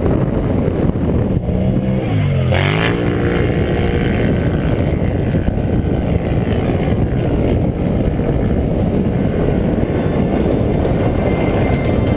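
Quad ATV engine revving in the distance, its pitch dropping and then climbing again about two to three seconds in, over a steady loud rumbling noise.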